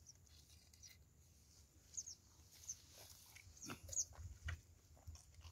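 Faint handling sounds of dry mud and grass being worked by hand: scattered light clicks and rustles, starting about two seconds in after a near-silent stretch.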